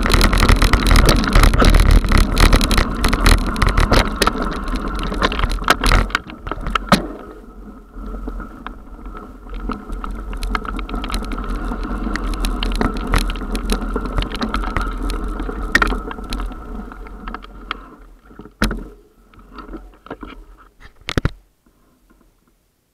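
Mountain bike rolling fast down a rough dirt trail, heard from a camera mounted on the bike: wind rush, tyre rumble and rattling knocks over bumps. After about six seconds it settles to a softer, steadier rush, then fades as the bike slows, with a couple of sharp knocks near the end before it goes quiet.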